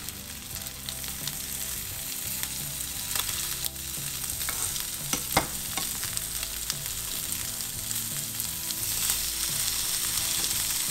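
Pieces of steamed octopus tentacle sizzling in hot oil in a non-stick frying pan, being seared to crisp the outside. A metal fork turns them over, with a few sharp clicks against the pan.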